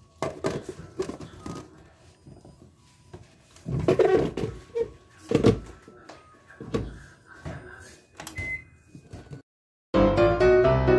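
Knocks and clatter of a blender jar and its lid being handled and set on the blender base, several sharp bumps at uneven intervals. Near the end this gives way to piano music.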